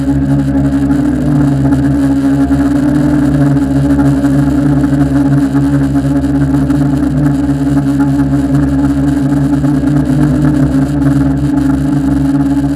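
Tarot 680 Pro hexacopter's six electric motors and propellers running steadily in flight, a loud even hum with a few held pitches, heard from a camera mounted on the airframe.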